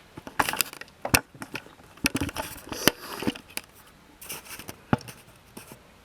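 Hands untwisting a twist tie from a coiled appliance power cord: irregular rustles and small clicks, with a few sharp taps as the cord and plug knock about.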